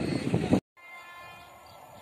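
Wind buffeting the microphone, cut off suddenly about half a second in. After it comes a much quieter, faint steady hum with a few held high tones.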